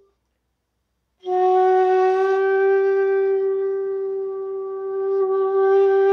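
Bamboo bansuri flute playing one long held low note that starts about a second in, with a breathy edge. Near the end the note starts to bend upward: the opening of a meend, a slow glide from Ni up to Sa.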